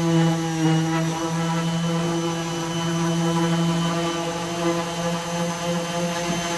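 Electric orbital sander running steadily at full speed, a constant drone with a thin high whine over it.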